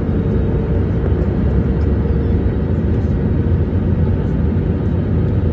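Steady cabin noise of a jet airliner descending to land: a low, even rumble of engines and airflow heard from a window seat over the wing, with a faint steady hum.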